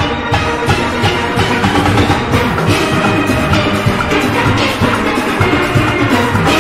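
A steel orchestra playing: many steelpans ringing together in layered chords and melody, over a steady beat of drums and percussion.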